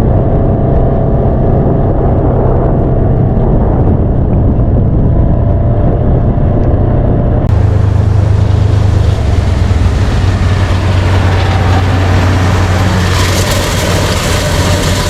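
Farm machinery running: a loud, steady diesel engine drone. About seven and a half seconds in, the sound changes abruptly to a heavier drone with an added hiss, and the noise grows broader near the end.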